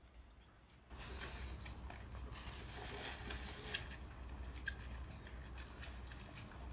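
Faint eating sounds from people eating cup noodles: slurping and chewing with small clicks of forks against paper cups and tissue rustling, starting about a second in.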